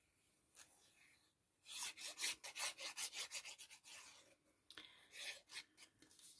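Fine-tip nozzle of a liquid glue bottle scratching across the back of a card panel as glue is drawn on in zigzag lines. It makes a faint run of quick rubbing strokes, about four a second, then a few more scrapes near the end.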